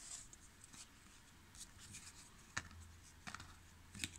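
Faint sliding and clicking of cardboard trading cards being flipped through by hand, with a few short sharp ticks spread through.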